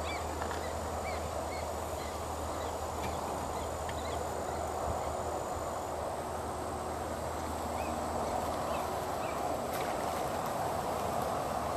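Steady outdoor background noise with a low hum, a thin high steady tone, and many faint, short chirps of small birds scattered throughout.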